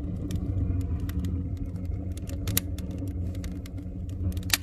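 Wood-fired rocket stove burning under a strong draft: a steady low rumble, the sound typical of rocket stoves, with scattered sharp crackles from the burning wood.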